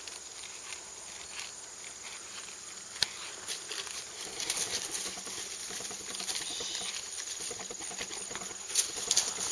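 A horse's hooves trotting on dry paddock turf, faint at first and growing louder and busier toward the end, over a steady outdoor hiss. A single sharp click about three seconds in.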